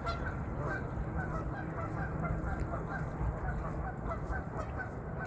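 A flock of waterfowl at a pond calling, many short calls overlapping in a steady chatter.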